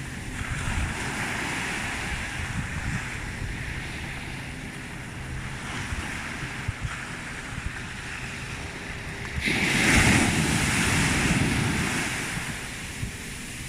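Sea waves washing on the shore, with wind buffeting the microphone. A bigger surge comes in suddenly about nine and a half seconds in, is the loudest moment, and fades over the next few seconds.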